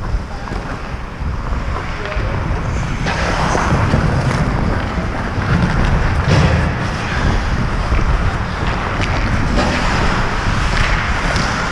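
Wind buffeting an action camera's microphone as the wearer skates, a steady heavy rumble, with the rough scrape of ice skate blades on the rink growing stronger from about three seconds in.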